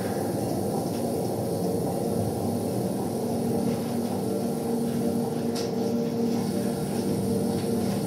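Experimental noise music played live: a dense, steady drone of low noise with a couple of held low tones and no clear beat or melody.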